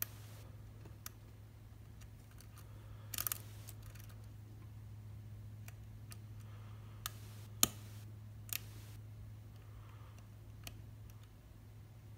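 Sparse small metal clicks of a thin lock pick working the pins and warding inside an Abus C73 padlock, irregularly spaced, with a short cluster about a quarter of the way in and the loudest click just past halfway, over a steady low hum.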